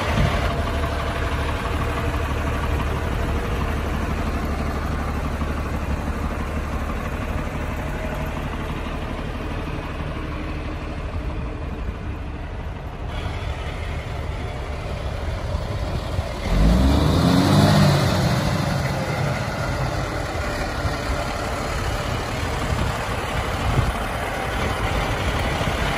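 Cummins diesel engine of a 1990 International water truck running steadily at idle, then revving up and back down for a couple of seconds about two-thirds of the way through.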